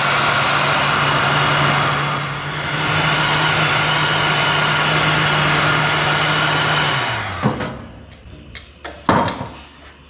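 Electric heat gun blowing steadily while heating a wire splice, dipping briefly about two and a half seconds in, then switched off and winding down about seven and a half seconds in. A few handling clicks and one sharp knock follow near the end.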